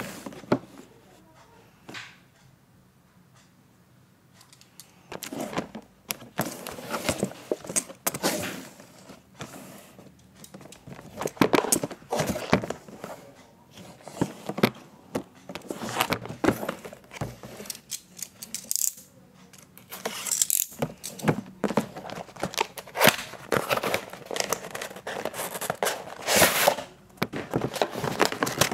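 Cardboard packaging handled close to the microphone: the box is rubbed, scraped, shifted and knocked against the table, a run of irregular rustles and clicks. It is mostly quiet for the first few seconds, then busier from about five seconds in.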